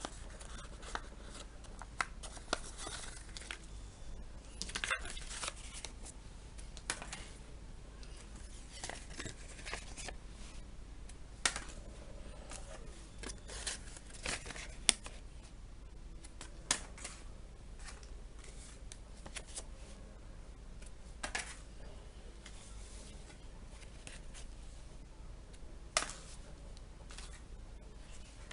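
Paper being handled and cut while folding a paper cicada airplane: rustling and crinkling, with scattered sharp snips and clicks, a few louder ones standing out.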